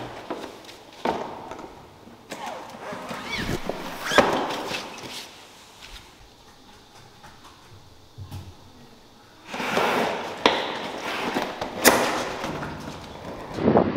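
A plastic folding cart being loaded with camping-shower gear: a series of knocks and thuds as the pieces go into the crate, with rustling between them and a quieter pause midway.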